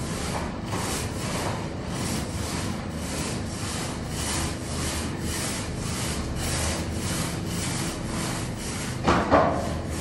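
Rhythmic hand strokes rubbing and scraping against a wall during repainting, about three or four strokes a second.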